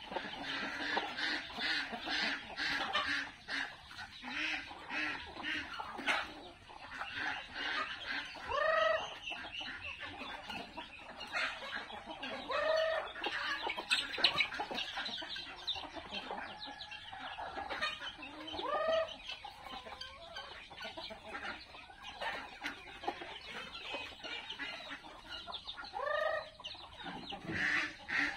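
A flock of free-range chickens clucking continuously. A short call that rises and falls is heard four times at irregular intervals.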